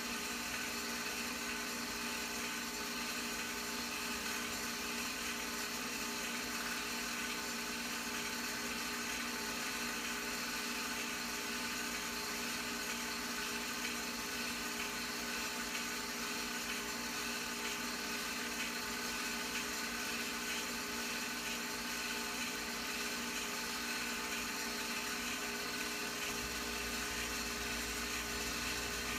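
Home-movie film projector running: a steady motor whir with a constant hum under it.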